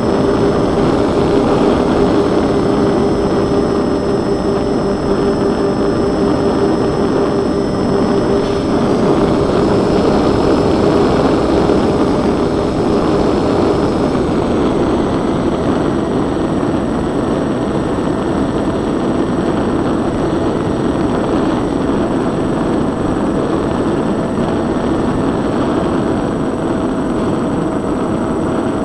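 Twin-engine RC plane in flight, heard from its onboard camera: a steady rush of airflow mixed with the hum of its motors and propellers. A high whine and one tone of the motor hum drop away about halfway through.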